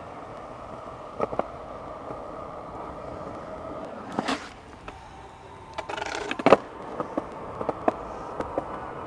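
Skateboard clacks and knocks: scattered sharp taps, with two short noisy rushes about four and six seconds in, the second ending in the loudest knock.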